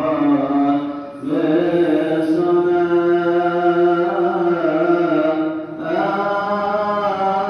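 A priest's solo voice chanting a Coptic liturgical melody in long, drawn-out melismatic notes, pausing briefly for breath about a second in and again near the end.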